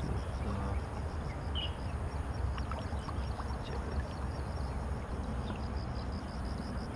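Riverside outdoor ambience: a steady low wind rumble on the microphone, with a faint high chirp repeating about four times a second.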